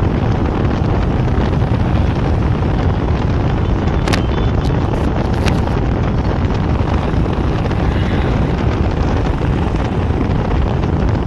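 Steady wind rush and road noise from a moving vehicle, with wind buffeting the microphone. A couple of brief clicks sound about four and five and a half seconds in.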